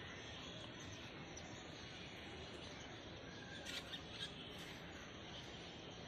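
Sparrows chirping faintly: a few short, high chirps about four seconds in, over a steady background hiss.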